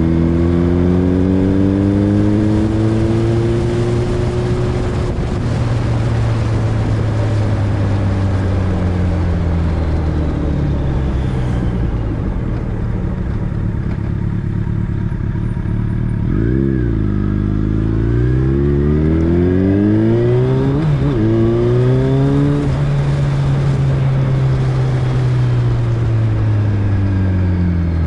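A road vehicle's engine running under way with wind and road noise. Its pitch sinks slowly as it slows, then revs up hard about two-thirds through, with a short break for a gear change, and eases off near the end.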